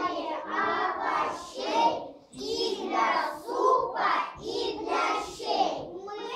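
A group of young children singing a song together in chorus, in held, sung syllables.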